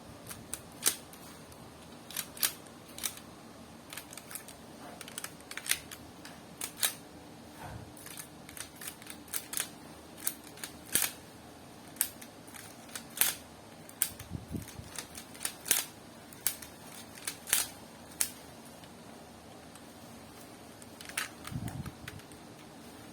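Lego plastic pieces clicking and snapping as they are handled and pressed together, in irregular sharp clicks with a pause of a few seconds near the end, over a faint steady hum.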